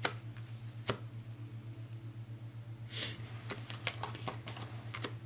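A few sharp clicks and lighter taps, with a short brushing sound about three seconds in, over a steady low electrical hum.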